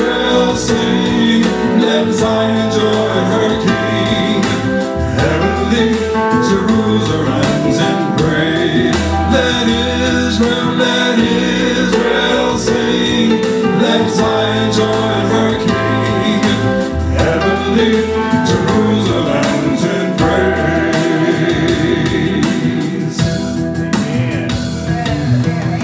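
Gospel praise song: a man sings lead over an instrumental backing with a steady bass and drum beat. The music eases off a little near the end.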